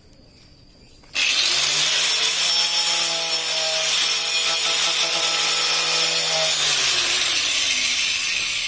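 Homemade table saw switched on about a second in, its motor spinning up and the blade cutting wood with a loud, steady noise.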